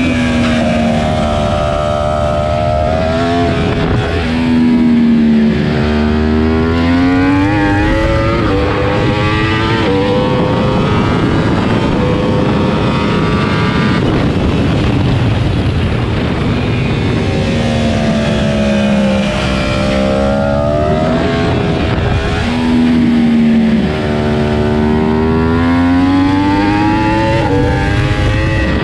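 Yamaha R1 superbike's crossplane inline-four engine at racing speed, its pitch climbing repeatedly as it pulls through the gears and dropping back on upshifts and under braking for corners, over loud wind rush.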